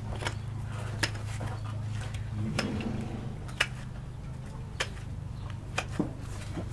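Hoof knife cutting through a horse's hoof horn at the bars and sole, each stroke a short, sharp click, about one a second at irregular intervals, over a steady low hum.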